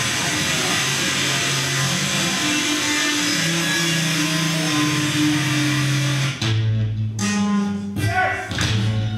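Live band music: an electric bass guitar plays held low notes over a dense, hissy electronic backing. About six seconds in the backing cuts out suddenly, leaving the bass with short, choppy sounds over it.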